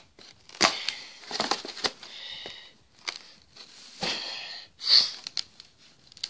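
Handling noise from a cardboard box being worked open by hand: sharp clicks and short rustling scrapes. Between them come breathy, wheezy sniffs from a person with a cold.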